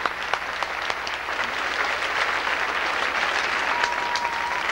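Large audience applauding: dense, steady clapping, with a short steady high tone near the end.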